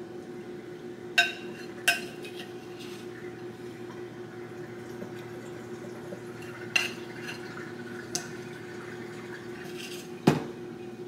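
Spoon clinking and scraping against a glass mixing bowl while scooping stuffed-pepper filling: five sharp clinks, the loudest near the end, over a steady low hum.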